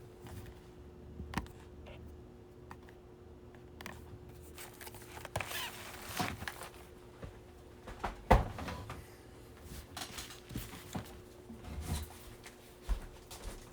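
Hands handling things at a table: scattered rustling and light knocks, with one sharper thump about eight seconds in, over a faint steady hum.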